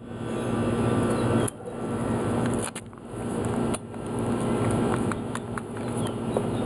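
Stihl MS362 two-stroke chainsaw engine running, its sound dropping briefly three times in the first four seconds.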